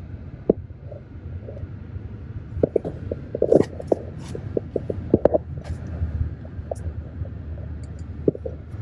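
Road noise inside a moving car's cabin: a steady low rumble of engine and tyres, with scattered clicks and knocks, most of them a few seconds in.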